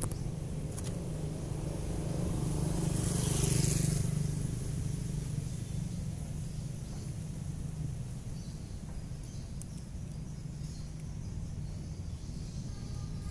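Traffic noise: a steady low rumble with a vehicle passing, loudest about three to four seconds in and then fading.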